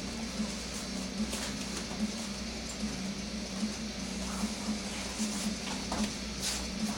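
Steady low hum over a faint hiss, with scattered soft thuds and scuffs of bare feet and bodies on foam floor mats as martial artists move and grapple.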